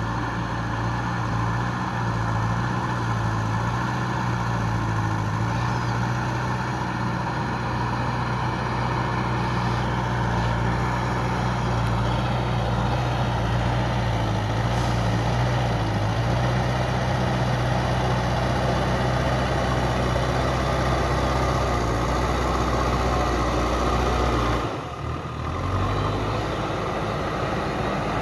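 Diesel engine of a JCB 3DX backhoe loader running steadily under work, a deep even engine hum. It briefly drops out near the end and then carries on.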